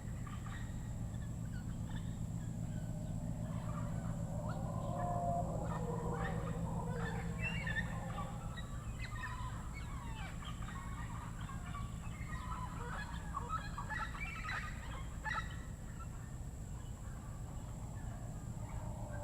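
Tropical rainforest bird chorus: many birds calling at once in short chirps, whistles and chattering, building up about a second in and thinning out after about 16 seconds. Under it runs a steady low hum and a thin steady high tone.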